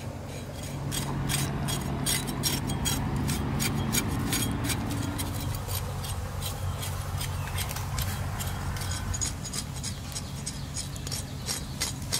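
A knife scraping and cutting at a raw pork leg: a quick run of short, irregular scraping strokes.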